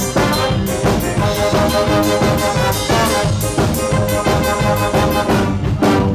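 Live band playing an instrumental passage: trumpet and other brass carry the tune over drums, bass and keyboard, with a steady beat.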